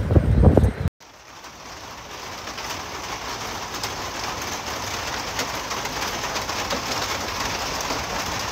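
Steady rain falling, a soft hiss of drops that fades in after a loud low rumble cuts off about a second in, with birds calling through it.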